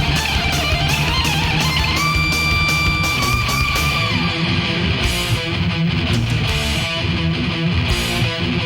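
Thrash metal recording: a distorted electric lead guitar slides through gliding notes, then holds one long note about two seconds in, over bass and pounding drums. After the held note it drops back into fast riffing.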